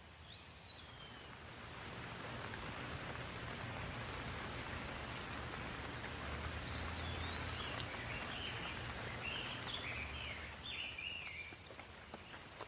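Steady rain falling, swelling over the first couple of seconds and easing near the end. A bird chirps once near the start and gives a run of short chirps through the second half.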